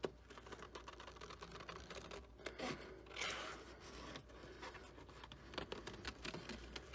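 Scissors snipping through patterned scrapbook paper along curved petal outlines, a run of faint short snips, with the sheet rustling as it is turned and handled.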